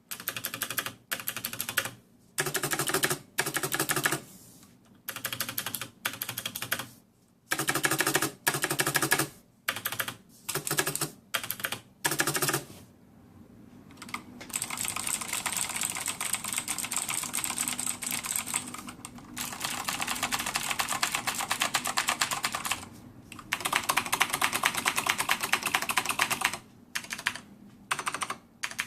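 Typing on a clicky blue-switch mechanical keyboard: short bursts of keystrokes with brief pauses, then long runs of rapid continuous typing from about halfway in.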